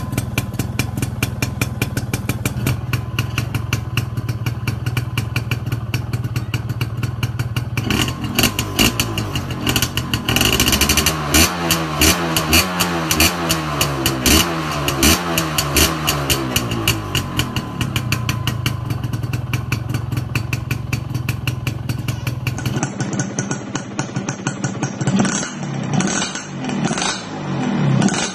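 Yamaha 125ZR two-stroke single on an aftermarket barrel (expansion-chamber) exhaust, idling with a fast popping beat, then revved up and down repeatedly for several seconds before settling back to idle. After a cut near the end, a second smoking two-stroke exhaust is blipped several times.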